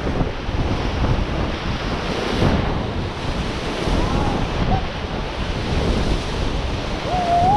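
Rushing river water around a raft, a steady noise with wind buffeting the microphone.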